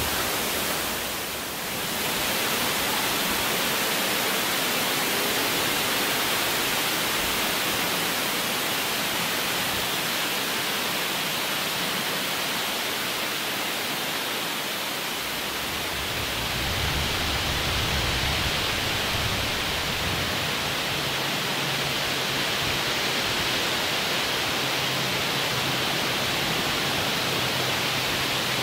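Steady wind in the woods, an even hiss throughout, with a low, uneven rumble of gusts on the microphone from about halfway through.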